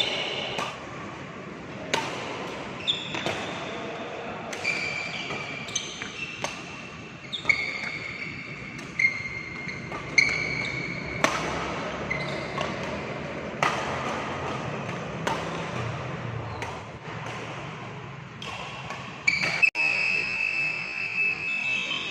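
Badminton rally: badminton racket strings striking the shuttlecock, a sharp hit about every one to one and a half seconds, with shoes squeaking on the court floor between shots.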